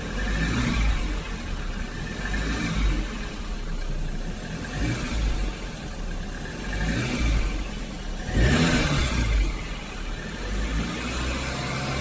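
Volkswagen Golf R's turbocharged four-cylinder engine running just after a cold start, with a ticking the owner is trying to diagnose; the sound swells louder for about a second around eight seconds in.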